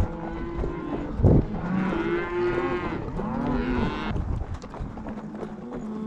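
A herd of beef cattle mooing, several long calls overlapping one after another, with a short thump about a second in.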